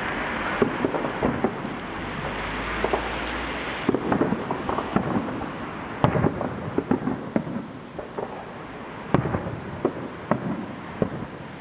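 Fireworks going off: a string of irregular bangs and crackles over a steady rushing background.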